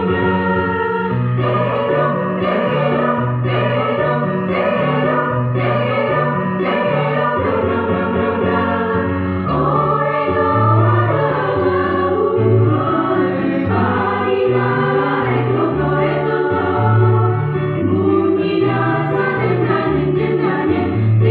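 Choir singing in parts, with a low bass line moving in steady held notes beneath the upper voices.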